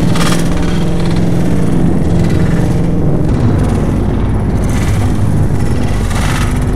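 Loud, steady low droning rumble with sustained bass tones, with a brief sharp hiss-like hit at the start and another near the end.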